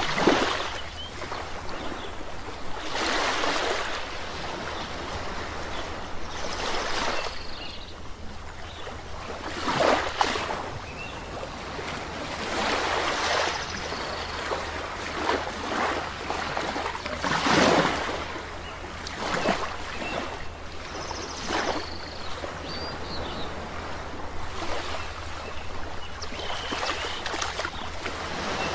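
Sea waves breaking and washing up on a shore, swelling louder every few seconds, with a few short bird calls.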